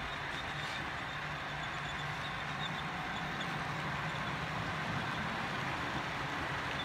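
HO-scale model freight cars rolling past on the track: a steady rolling rattle of the cars' wheels on the rails, with a few faint light ticks.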